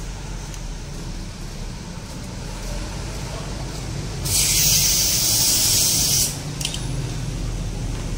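A loud, even spray hiss lasting about two seconds, starting about four seconds in and cutting off suddenly, over a low steady background hum.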